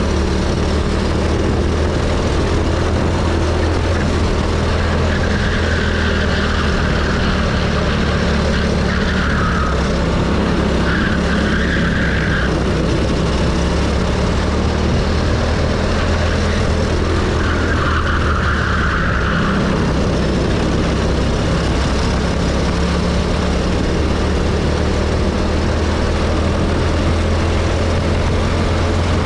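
Go-kart engine running at speed on a track, heard onboard with wind rushing over the microphone; a steady low drone whose pitch shifts only slightly through the laps. A higher hissing sound comes and goes a few times.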